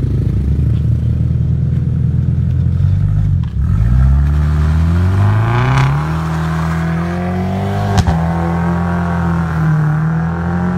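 Exhaust of a 2018 Mercedes-Benz C300 (W205), a 2.0-litre turbocharged four-cylinder breathing through an Armytrix valved flap exhaust. It idles, then pulls away under acceleration: the note rises steeply from about three and a half seconds in and then holds a steadier, higher tone as the car drives off. There is one sharp crack about eight seconds in.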